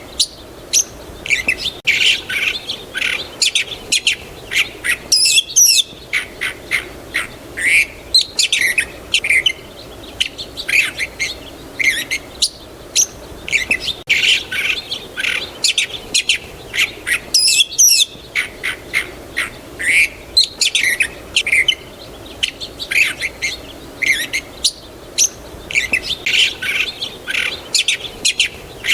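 Small songbirds chirping and singing in quick, overlapping calls. The recording repeats itself about every twelve seconds.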